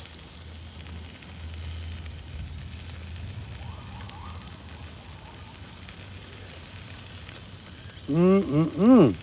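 Barbecue-sauced chicken wings sizzling on a portable gas grill while sauce is brushed on, over a steady low hum. About a second before the end, a short wordless voice sound that rises and falls in pitch.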